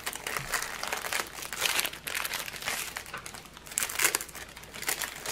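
Clear plastic wrapping on a rolled diamond painting canvas crinkling in irregular bursts as it is handled and unrolled.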